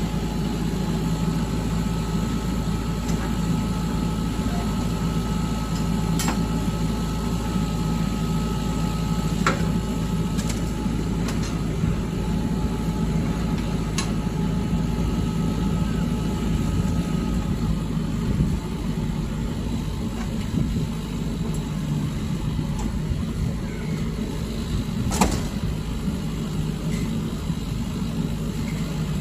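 Lorry engine running steadily, with a few sharp clicks or knocks over it, the loudest about 25 seconds in.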